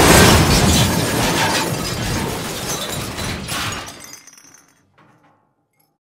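Glass-shattering crash sound effect: a sudden loud smash followed by shards clattering and tinkling, dying away over about four seconds, with one faint last clink near the end.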